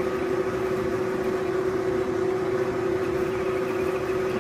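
Manual metal lathe running steadily with a constant whine, while an indexable-insert turning tool takes a roughing cut along a taper, fed by hand through the compound rest.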